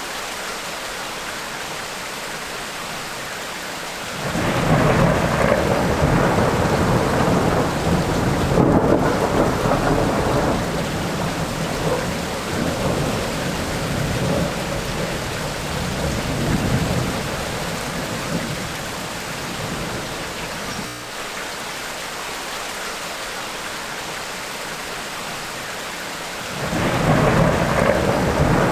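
Steady rain with rolling thunder: a rumble breaks in suddenly about four seconds in and rolls on for some fifteen seconds before dying back to rain alone, and a second roll of thunder begins near the end.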